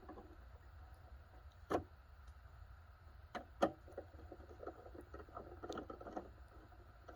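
Scattered clicks, scrapes and knocks of a dehumidifier being pried apart with a screwdriver, with a sharper knock about two seconds in and two more close together around three and a half seconds. A low steady hum runs underneath.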